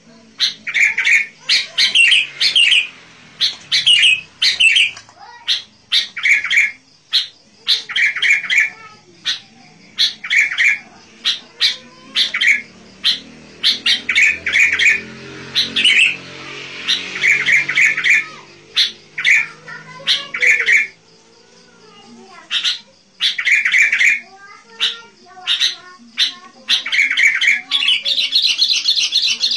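Sooty-headed bulbul (kutilang) calling vigorously: short, loud, harsh chattering notes repeated over and over in quick bursts, with a brief lull about two-thirds of the way through.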